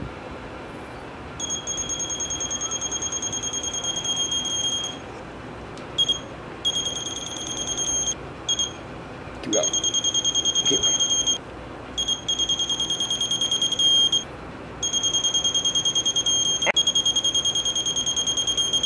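Digital torque wrench beeping rapidly in a high tone, in about six bursts from a fraction of a second to four seconds long. The beeping signals that each bolt has reached the 30 ft-lb set torque.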